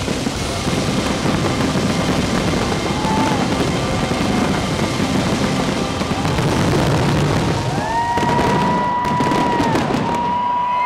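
Fireworks crackling and banging continuously over loud music. A held tone comes in about eight seconds in, and a quick run of sharp cracks follows near the end.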